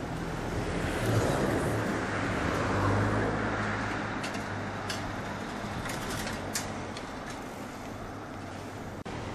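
Street traffic: a motor vehicle's engine hum swells over the first few seconds as it passes, then slowly fades under the general road noise. A few short, sharp ticks come in the middle.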